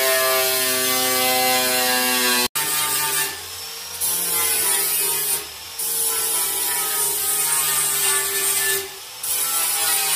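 Angle grinder running, its disc cutting into a car's sheet-steel bonnet with a steady motor whine. About two and a half seconds in the sound breaks off sharply, then the grinder works along a steel bonnet edge again, dipping in level briefly three times.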